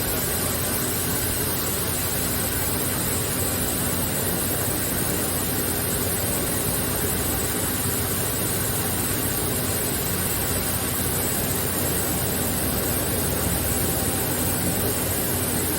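CNC machining center running under power: a steady mechanical hum and hiss with a few faint steady tones in it.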